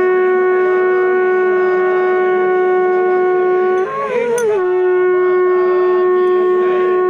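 Conch shell (shankh) blown in long blasts on one steady note. About four seconds in the note breaks and wavers briefly, then it is held again.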